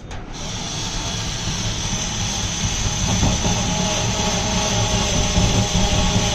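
Small cordless drill motor running steadily with a continuous whine, its bit pressed against the trunk's sheet-steel floor without biting through: a failed attempt to drill the metal.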